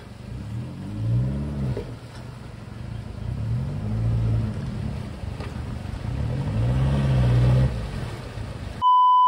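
Isuzu D-Max pickup's engine revving up and easing off three times as it wades through a river, with water washing around the wheels. Near the end a steady electronic beep cuts in.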